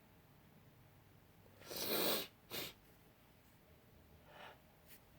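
A woman's stifled sneeze: a breathy, half-second burst about two seconds in, followed by a short second puff.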